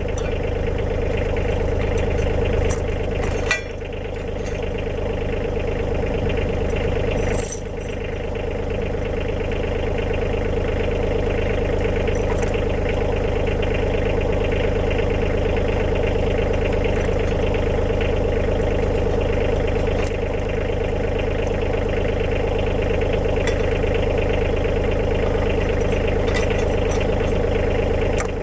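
Tractor engine running steadily, with a few brief metallic clinks over it.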